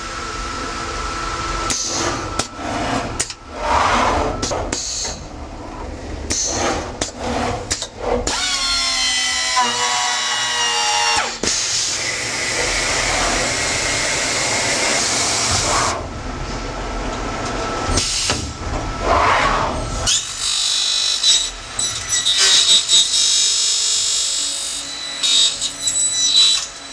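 CNC corner cleaning machine removing weld flash from the welded corner of a colored PVC window profile. Knocks and clicks come as the tools move in, then a cutter motor whine that rises and falls in pitch, and stretches of steady milling and scraping.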